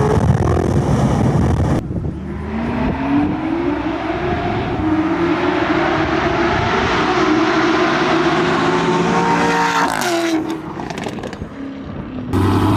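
Car engine under full throttle in a drag run, its pitch climbing in steps as it shifts up through the gears, then dropping sharply as the driver lifts off near the end. The sound cuts abruptly twice, at the start and near the end, to other loud engine runs.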